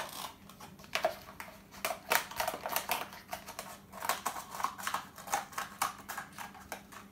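Scissors cutting through a plastic cup: a run of short, crisp snips and crackles at an uneven pace.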